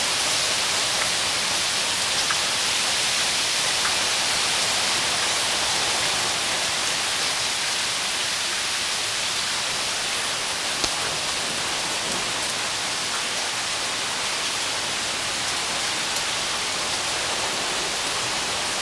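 Steady rain falling during a thunderstorm, an even hiss with no thunder, and a couple of sharp taps: one about two seconds in and one near the middle.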